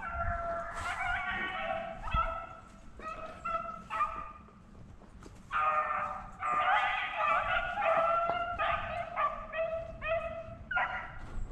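Beagles baying in a string of short, overlapping bawls, the pack giving voice as it runs a rabbit's track. The calls thin out for a moment a little past the middle, then come thick again.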